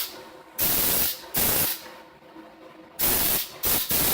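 Compressed air blown in four short hissing blasts, about half a second each, to clear dust out of a rack server's open chassis.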